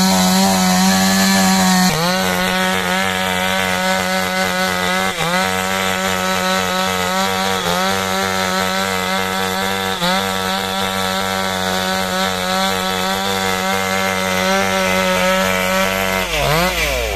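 Two-stroke chainsaw running at high revs while cutting through wood and brush. The pitch dips briefly every two to three seconds, then drops and picks up again near the end.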